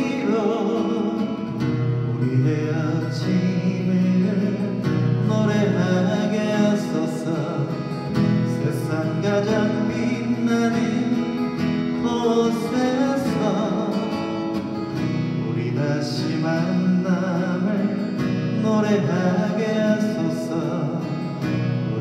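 A man singing a slow Korean ballad to his own strummed acoustic guitar, amplified through a microphone.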